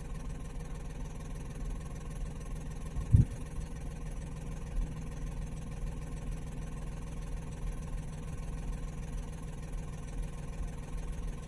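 Car engine idling, heard from inside the cabin as a steady low hum. There is a single short knock about three seconds in.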